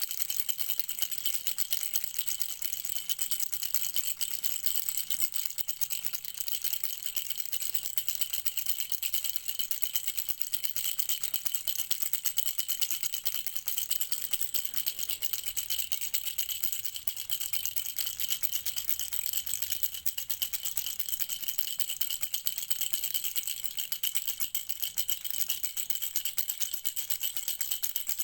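A baby rattle shaken rapidly and without pause, making a dense, high rattling.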